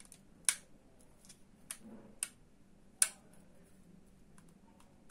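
Sharp plastic clicks and taps from a ring light being handled while a charging cable is worked into its port. There are four main clicks, the loudest about three seconds in, with a few fainter ticks between them.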